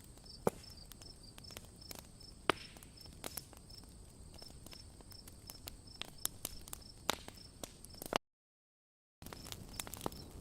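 Wood campfire crackling, with scattered sharp pops over a soft steady hiss, while crickets chirp steadily in a fast even rhythm. The sound cuts out completely for about a second near the end.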